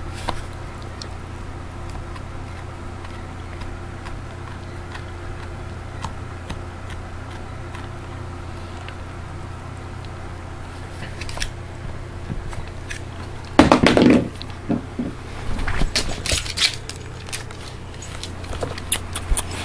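A beagle gnawing on a bone: scattered clicks and scrapes of teeth on bone, with louder crunching about two-thirds of the way through and again shortly after. A steady low hum runs underneath.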